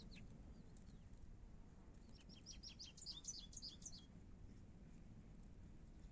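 A small bird singing faintly: one quick trill of short, high notes lasting about two seconds, starting about two seconds in, over a quiet outdoor background.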